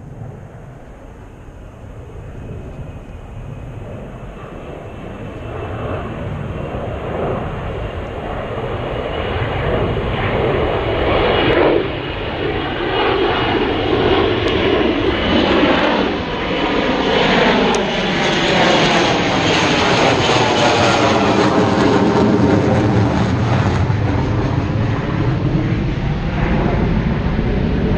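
Jet aircraft passing low, directly overhead: its engine noise swells steadily over the first ten seconds or so and then stays loud, with a faint high whine and a sweeping, phasing tone as it passes over.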